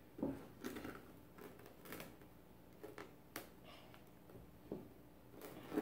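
Small metal measuring cup scooping and packing light brown sugar in a plastic canister: a string of short, faint scrapes and clicks at an uneven pace.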